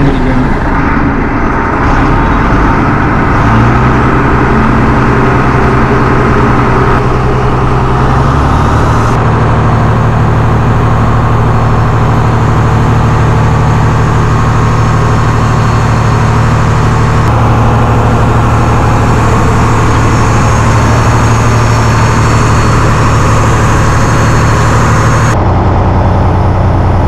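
A fishing boat's inboard diesel engine running with a loud, steady low drone. Its pitch and tone shift abruptly several times.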